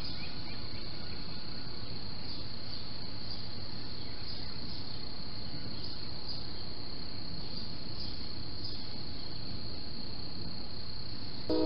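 Outdoor ambience through a security camera's microphone: a steady high-pitched insect trill, crickets, pulsing gently over a low even hiss, with a few bird chirps at the start.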